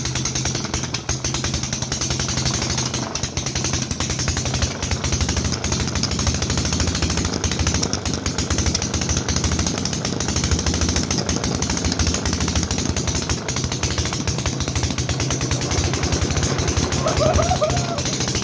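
Home-built two-stroke engine made from a compressor, running steadily with fast, even firing pulses.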